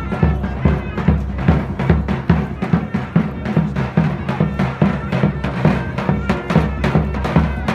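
Loud folk dance music driven by a steady, heavy drum beat, with a reed wind instrument playing a high melody.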